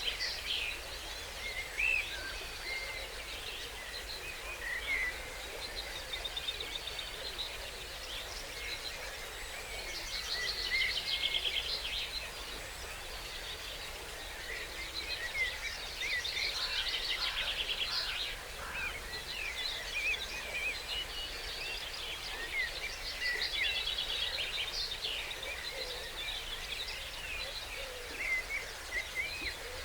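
Dawn chorus of several songbirds singing at once: overlapping whistled phrases and fast trills, with runs of trilling about ten, sixteen and twenty-three seconds in. A steady low background noise sits beneath the birds.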